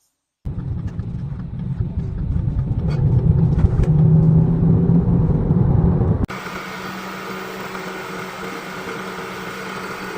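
Volkswagen Tiguan engine running, in two clips: first a low rumble that swells over several seconds as if under acceleration, then after a sudden cut about six seconds in, a steadier engine sound with a few held pitches. The car is in for a rattling knock on acceleration, later traced to a broken bolt in the engine's bottom end.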